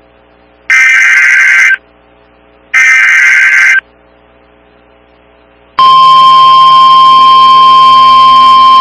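NOAA Weather Radio Emergency Alert System tones: two roughly one-second bursts of the SAME header's digital data, a screechy warble, then about six seconds in the steady 1050 Hz warning alarm tone starts, loud. Together they mark the start of a new weather warning alert.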